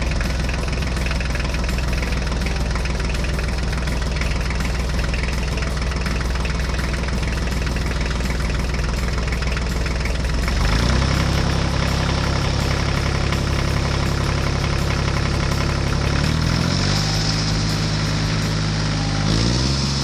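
Tractor engine sound running steadily at a low pitch. It picks up about halfway through, revs a little higher near the end, then settles back down.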